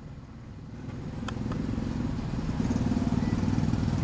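Music played through a small woofer fed by a low-pass filter (subwoofer preamp), so mostly the low bass comes through. A new song comes in after a brief dip and swells over the first two seconds, with a light click about a second in.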